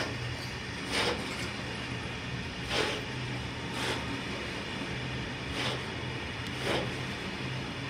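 Freight train of Talns hopper wagons rolling slowly past, wheels clacking over a rail joint in pairs about a second apart, each pair coming round again roughly every three seconds, over a steady low rumble.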